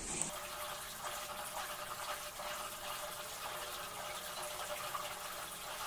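Steady hissing noise with a faint steady hum; its character changes abruptly just after the start.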